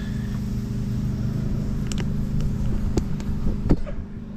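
A steady low mechanical hum in the shop, with a few sharp clicks and knocks in the second half as the camera is handled and moved.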